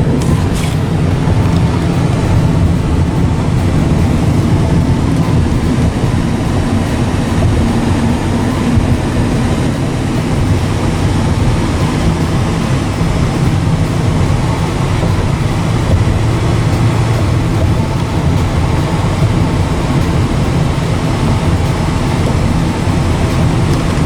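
Steady road and engine noise heard from inside a moving car, mostly a low rumble.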